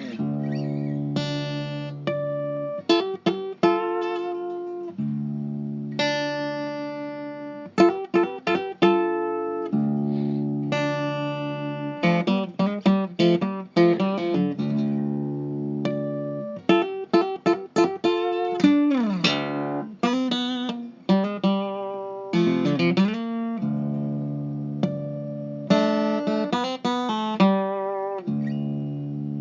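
Instrumental guitar music: plucked single notes and strummed chords, each struck sharply and left to ring and fade, with a sliding drop in pitch about two-thirds of the way through.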